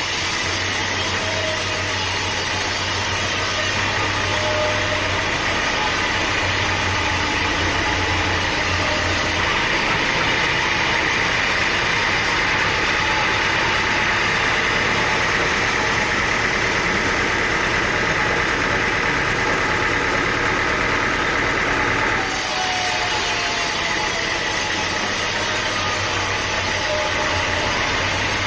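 A sawmill's engine runs steadily. Its tone changes for a stretch in the middle, brightening and then dropping back about 22 seconds in.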